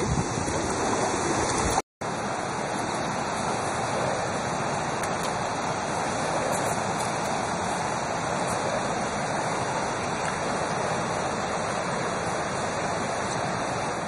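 Fast-flowing mountain river rushing over rocks and through rapids, a steady rush of water. The sound cuts out for an instant about two seconds in, then runs on unchanged.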